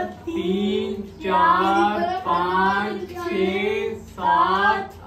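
A voice singing a melody in long held notes, about five phrases with short breaks between them.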